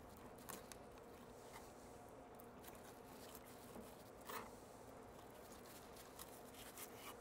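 Faint clicks and scrapes of a fillet knife cutting the rib bones out of a redfish fillet on a wooden cutting board, one click a little louder about four seconds in. A faint steady hum lies underneath.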